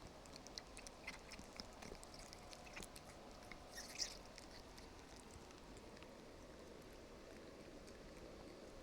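Near silence: quiet room tone with faint, scattered small clicks and taps in the first half, one a little louder about four seconds in.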